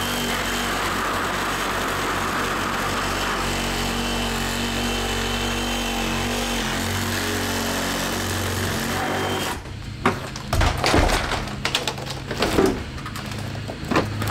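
Cordless reciprocating saw running steadily as it cuts through an old window sill, stopping abruptly about nine and a half seconds in. After that come irregular knocks and scrapes as the cut sill is worked loose by hand.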